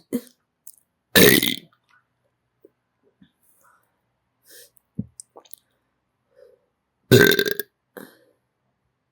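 Two loud human burps, close to the microphone: one about a second in and another about seven seconds in, each lasting about half a second. Faint short clicks come in between.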